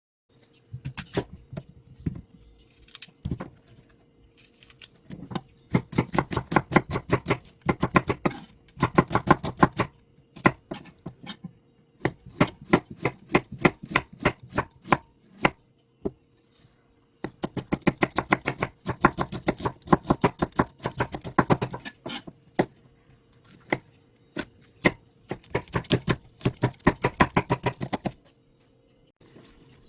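Kitchen knife chopping on a cutting board in fast, even runs of strokes, with short pauses between bouts.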